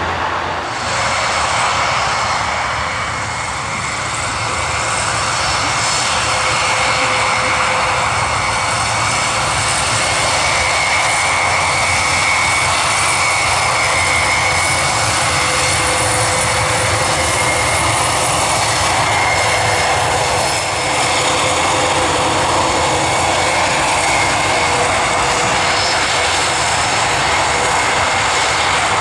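Airbus A400M's four TP400-D6 turboprop engines with eight-bladed propellers running as the transport aircraft taxis on the ground after landing: a loud, steady drone with a constant whine on top.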